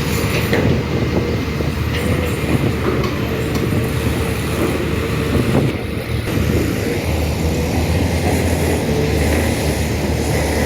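Heavy diesel machinery running steadily: a deep engine rumble with a constant whine above it.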